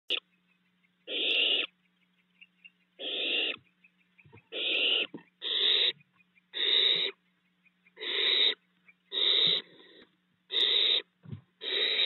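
Barn owl owlets in the nest box giving harsh hissing calls: about nine hisses, each about half a second long and repeating every second or so. This is the snoring hiss that barn owl nestlings use to beg for food.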